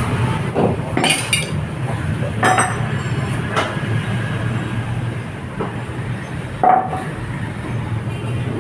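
Metal clinks and knocks as a scooter is handled and worked on in a steel frame-straightening press, about half a dozen at irregular intervals, the sharpest near the end. A steady low hum runs underneath.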